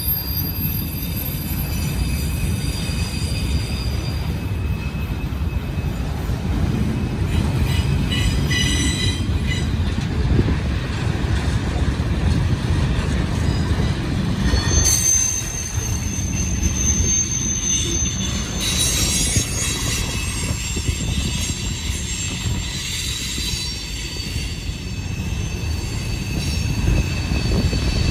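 Freight train cars rolling past over a steady low rumble, their wheels squealing in several high, thin tones as they take a tight curve; one shrill squeal stands out for a few seconds about halfway through.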